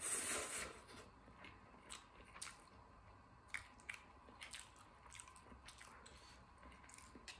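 Close-up mouth sounds of someone chewing spicy stir-fried instant noodles: wet smacks and small clicks scattered throughout, with a louder rush of noise in the first second.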